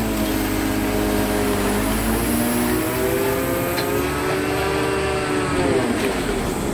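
Grapple excavator's diesel engine and hydraulic pump running under load, a steady whine that sags and rises in pitch several times as the boom lifts and swings a heavy bulk bag of iron turnings, dipping sharply and recovering near the end.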